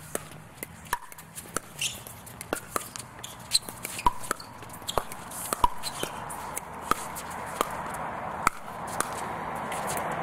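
Pickleball paddles hitting a hard plastic pickleball in a fast doubles rally at the net: sharp hollow pops, about two a second.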